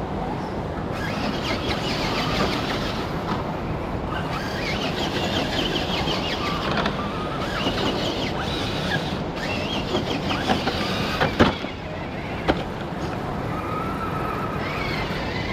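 Radio-controlled scale rock crawler's electric motor and gears whining, rising and falling in pitch as the throttle is worked, over a steady low rumble. Two sharp knocks come about two-thirds of the way through.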